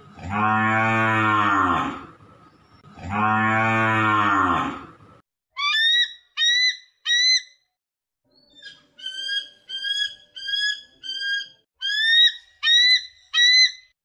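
A cow mooing twice, two long low calls of about two seconds each. Then a bald eagle's high, piping call: three short notes, followed by a run of about ten quick chirps.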